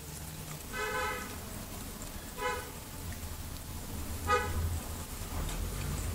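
A horn sounding three short, steady toots about a second and a half to two seconds apart, the first a little longer than the others, over a low rumble.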